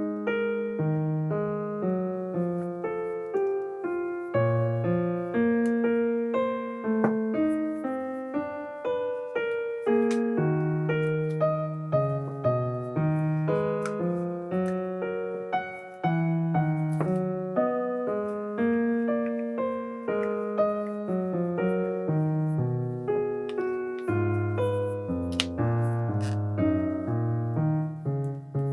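Solo piano music playing a gentle melody over chords, with notes struck and fading one after another.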